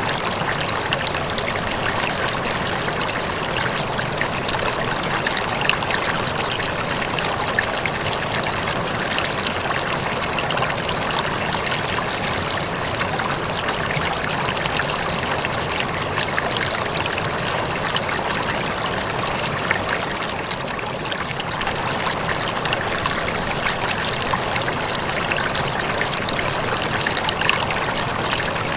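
Steady trickling and splashing of water in an aquarium, continuous with many small ticks and splashes.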